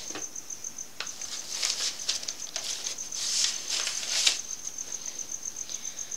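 Soft rustling and scuffing noises in several short bursts, over a faint high-pitched pulsing of about five beats a second.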